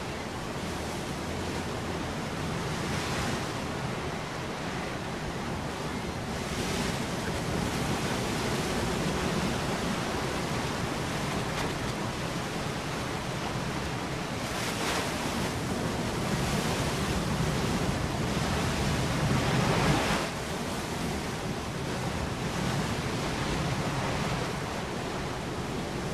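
Steady rush of open sea water and wind, with louder swells about halfway through and again about three quarters of the way in, then a sudden drop.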